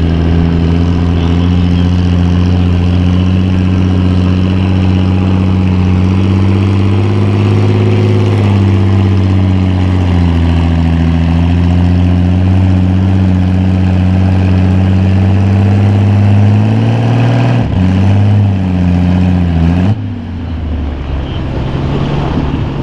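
Farm tractor's engine running loud and hard under load while pulling the sled, its pitch sagging and recovering partway through. About eighteen seconds in the note breaks up, and a couple of seconds later it drops off sharply as the throttle comes back at the end of the pull.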